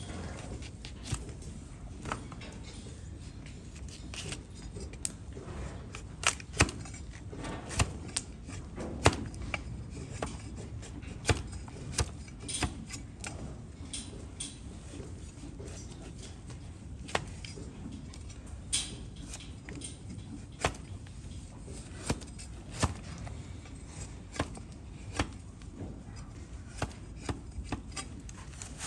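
Blade cutting and paring a donkey's hoof horn: irregular sharp cracks and short scrapes as pieces of overgrown hoof are sliced away, a few cuts much louder than the rest.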